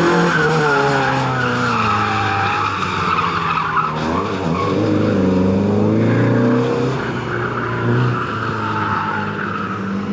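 Renault Clio race car's engine running hard through corners, its pitch falling then climbing with the revs and dropping again about seven seconds in, with tyres squealing.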